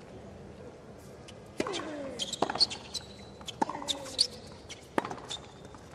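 Tennis ball struck by rackets and bouncing on a hard court during a rally: sharp pops roughly a second apart, with short high squeaks of players' shoes on the court.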